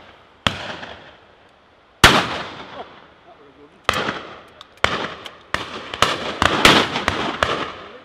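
12-bore shotguns firing at driven game birds, each shot a sharp crack with a long echoing tail. A single loud shot comes about two seconds in. From about four seconds the shots come faster and faster, overlapping in a ragged volley from several guns.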